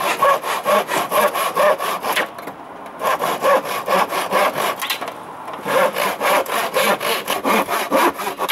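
Hand saw cutting fence-panel timber: quick back-and-forth strokes, about four or five a second, in three runs with short pauses between them.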